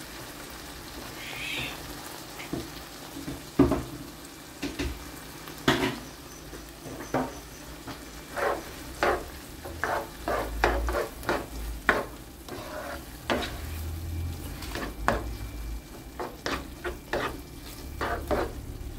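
A spatula stirring and scraping bacon, bell peppers, chipotle and cream through a nonstick frying pan over a low sizzle, with repeated sharp knocks of the spatula against the pan starting about three seconds in.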